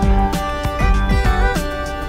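Background music: a tune of held notes stepping in pitch over a steady beat.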